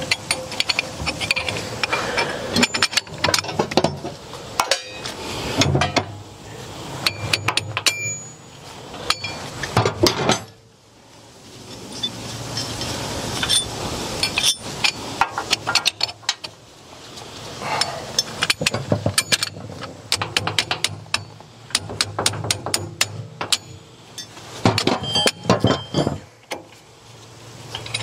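Irregular metallic clinks and knocks of steel parts being handled and fitted: the bolts, coil springs and nuts of a Bush Hog 3008 rotary mower's slip clutch are put on against the clutch plates. A brief quieter spell comes about a third of the way in.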